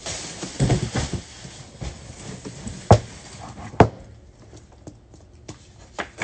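Plastic wrapping rustling as a wrapped picture frame is pulled out and handled, with two sharp knocks a little under a second apart near the middle, the loudest sounds.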